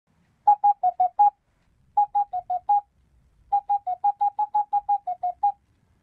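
Short electronic beeps in three quick runs, five, then five, then about thirteen, each blip slightly rising or falling in pitch: a game-style text-display sound effect, one blip per character.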